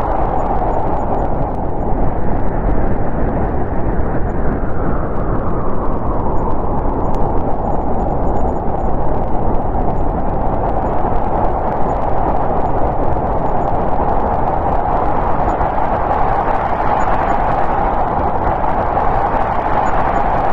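Strong winter snowstorm wind blowing steadily, with a hollow tone that dies down a few seconds in and swells back up in the second half.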